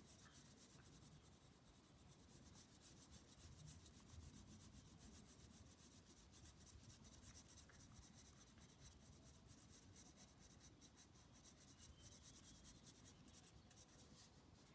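Faint scratching of a graphite pencil shading on paper in many short, repeated strokes.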